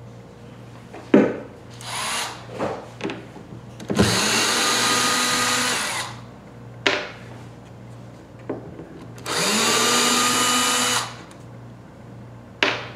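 Cordless drill-driver backing out the woofer's mounting screws from the speaker cabinet: two runs of about two seconds each, the motor's pitch rising as it spins up and then holding. Short clicks and knocks of the bit and screws come in between.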